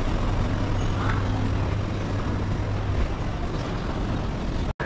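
Steady background noise of a bus terminal concourse, with a low hum that stops about three seconds in. The sound cuts out for an instant near the end.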